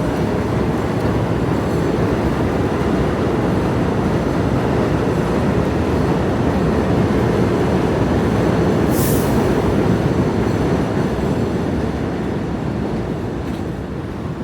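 New York City subway train running on the rails: a loud, steady rumble, with a brief high hiss about nine seconds in. The rumble eases off near the end.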